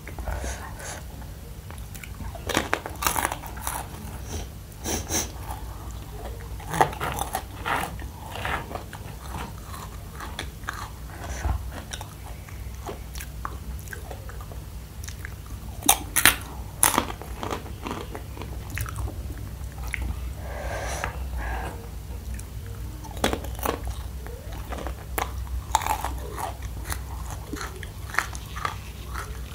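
Close-up crunching and chewing of a crunchy, extra-spicy macaroni snack, bites coming at irregular intervals, the two loudest crunches about sixteen seconds in. A steady low hum runs underneath.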